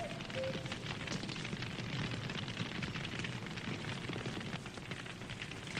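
Campfire of burning wood crackling steadily, a dense run of small irregular snaps and pops over a soft hiss.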